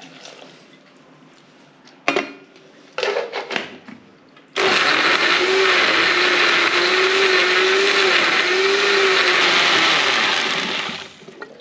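Electric kitchen blender whirring chopped figs and water into juice: a click and a short knock in the first few seconds, then the motor runs steadily for about six seconds with a faintly wavering hum and winds down near the end.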